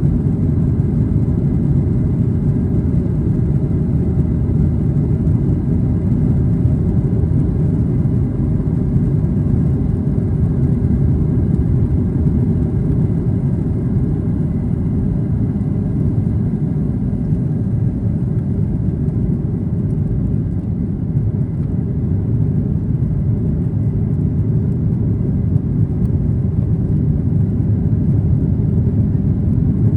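Steady low rumble inside the cabin of a Boeing 737-800 under power: its CFM56 jet engines and the rush of air over the fuselage, even throughout with a faint thin high whine above it.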